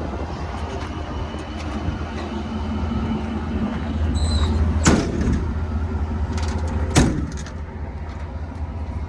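Diesel truck engine idling with a steady low hum, while two sharp bangs about two seconds apart, like doors or compartment lids shutting, ring out midway. A short high beep sounds just before the first bang.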